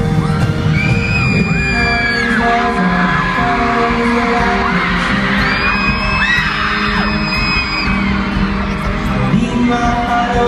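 Live pop band and singers playing through an arena sound system, with the crowd singing along. High-pitched screams ring out near the phone twice, about a second in and again around the middle.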